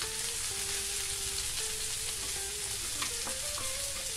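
Sliced onion and carrot sautéing in oil in a frying pan, a steady sizzle.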